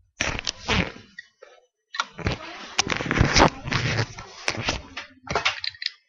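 Close handling noise at the webcam: thumps, knocks and rubbing as hands move plastic toy pieces and brush against the camera, in bursts about a second in, from two to five seconds, and again near the end.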